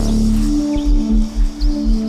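Electronic soundscape music: two low held tones alternate while a swell fades out under a quick pulsing bass beat that comes in a little under a second in. Small chirping glides sound high above.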